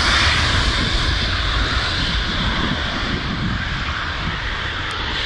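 Four turbofan engines of an Antonov An-124 at takeoff power during the takeoff roll: loud, steady jet noise that slowly fades as the aircraft moves away down the runway.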